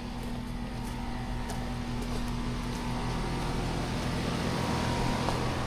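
A motor running steadily: a low, even hum with a steady pitch under a constant hiss.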